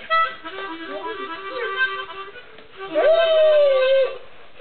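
Harmonica playing held chords while a white shepherd dog howls along, with one long, slightly falling howl about three seconds in, the loudest part.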